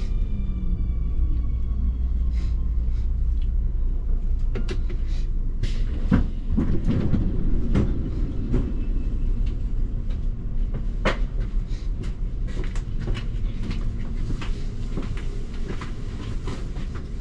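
Nuremberg U3 driverless U-Bahn train drawing to a stop, its electric motor whine falling in pitch and dying away in the first second or so. Then the standing train's steady low hum, with scattered sharp clicks and knocks and a brief louder rumble midway.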